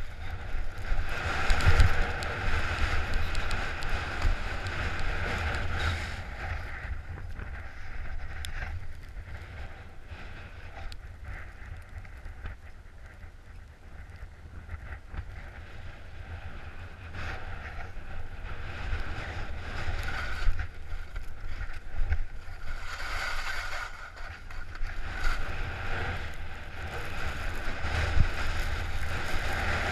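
Skis hissing and scraping over snow with wind rushing over a head-mounted action camera. It is louder near the start and again over the last several seconds, and quieter in the middle.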